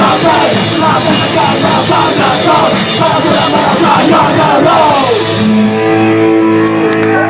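Live thrash-metal band playing a fast riff with distorted guitars and drums. About five seconds in the drumming stops and the band lets a held chord ring out.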